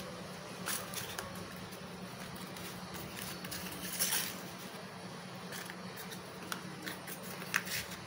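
Faint clicks and taps of cardboard matchboxes being set down and pushed together on a table, a handful of scattered knocks with the most distinct one about halfway through, over a low steady hum.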